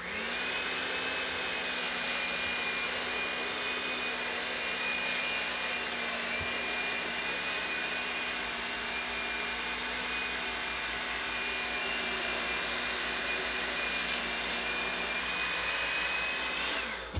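Electric hand mixer running steadily with a constant whine as it mixes plaster and water in a plastic tub. It starts abruptly and winds down as it is switched off near the end.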